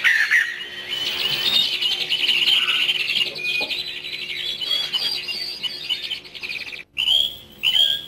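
Birdsong from a white-crested laughingthrush and other birds: quick, dense chirping and chattering notes, broken briefly near the end and followed by two clear whistled notes.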